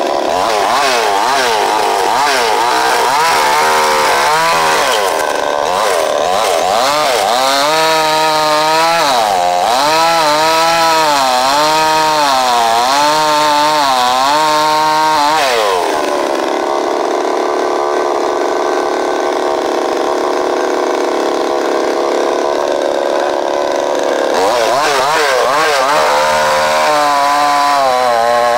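52cc Chinese Stihl-clone two-stroke chainsaw running on its first tank of fuel, revved up and down over and over, about twice a second. About halfway through it settles into a steady run for several seconds, then the revving starts again near the end.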